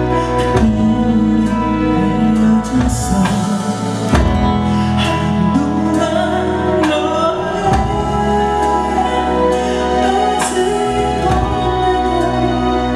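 Male vocal group singing over instrumental accompaniment.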